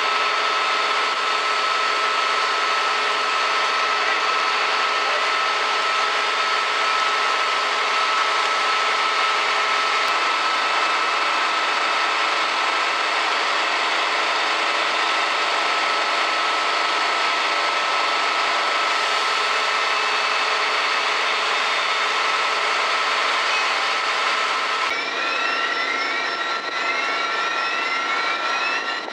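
Large engine running steadily at a fire scene, like a fire engine idling or driving its pump, with a constant whine over the engine noise. About 25 seconds in this cuts to an electronic alarm sounding a repeating rising tone, several sweeps a second.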